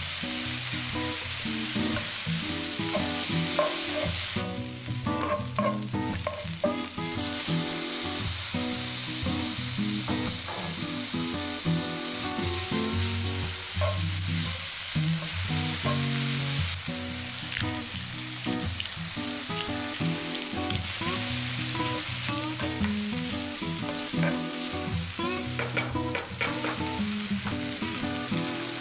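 Sliced onions and chicken pieces sizzling steadily in oil in a nonstick frying pan while being stirred with a wooden spatula, frying until browned. Soft background music plays underneath.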